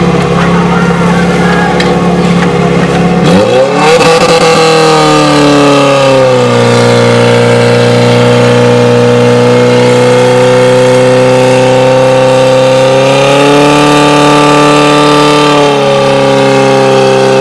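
Portable fire-pump engine running, revved up hard about three and a half seconds in, then settling into steady high-rev running as it pumps water through the hoses. Its pitch rises slightly again near the end and falls back.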